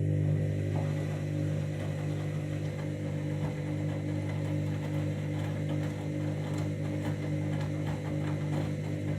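Washing machine drain pump running with a steady electric hum and faint gurgling ticks, pumping out the water at the end of the main wash.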